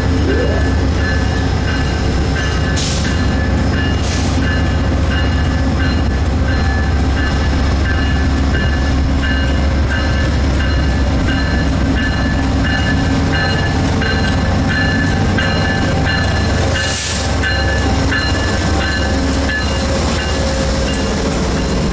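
GE P42DC diesel locomotive running steadily: a constant engine drone with a steady whine above it. Short hisses of released air come about three and four seconds in and again about seventeen seconds in.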